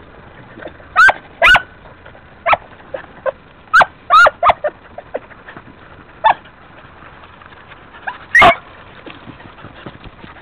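Beagles giving tongue: about ten short, high yelps and barks, several in quick pairs, the longest and loudest near the end. These are hunting hounds baying as they work scent to flush game.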